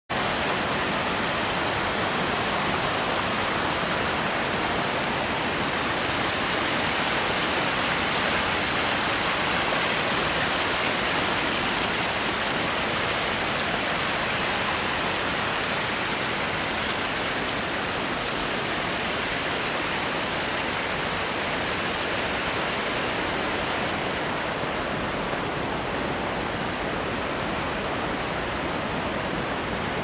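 River water rushing and splashing over granite shoals and small cascades: a steady rushing noise that swells slightly about a third of the way in.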